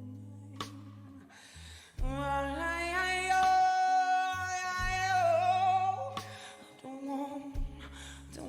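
Live blues ballad: a woman's voice holds one long sung note for about four seconds, wavering with vibrato near its end, over low, steady instrumental backing.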